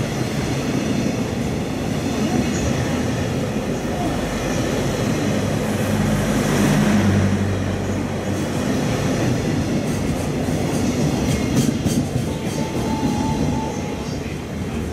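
Container freight train's wagons running past at speed close by: a dense rumble and rattle of steel wheels on rail, with clicks of wheels over rail joints later on, fading near the end as the last wagons go by.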